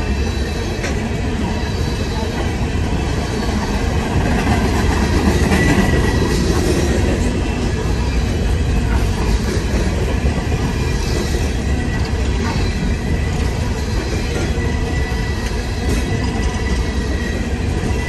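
Empty steel coal hopper cars of a freight train rolling past close by: a steady rumble of steel wheels on rail, with a thin, high wheel squeal running through it.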